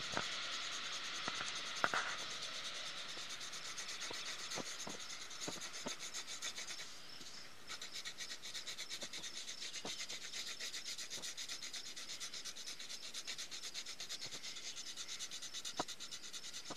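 Gray colored pencil shading on paper: quick back-and-forth scratchy strokes, settling into an even rhythm of about four strokes a second after the halfway point. A light tap about two seconds in.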